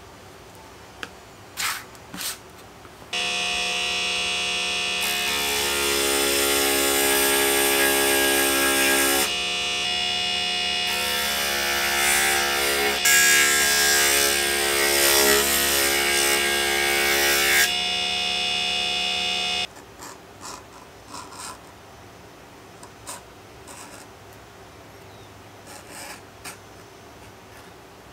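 Small electric rotary edge burnisher's motor running steadily from about three seconds in until about twenty seconds in, with a hissing rub each time the leather handle's edge is pressed against the spinning burnisher tip. Before and after it, only a few faint clicks from handwork.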